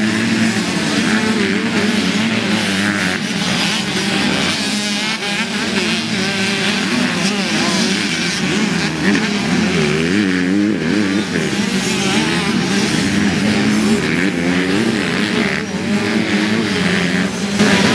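Several dirt bike engines revving on a motocross track, overlapping, their pitch rising and falling with each throttle change as the bikes race past.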